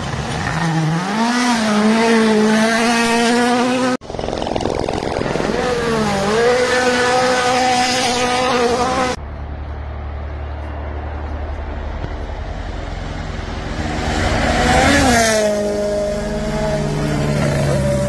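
Rally cars at full throttle on gravel stages, in three clips cut together, their engine notes climbing and dropping through the gears. Near the end a car passes with its pitch rising and then falling.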